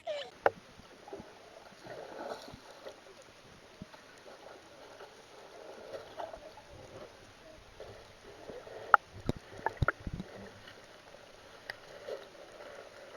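Faint sloshing and lapping of calm sea water, with a few sharp clicks about nine to ten seconds in.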